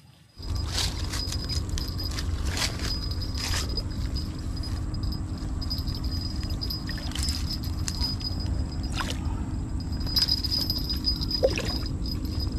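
Water splashing with scattered knocks and clicks over a steady low rumble, from a large catfish fighting on the line at the bank; the sound starts suddenly about half a second in. A thin, high insect buzz runs steadily behind it.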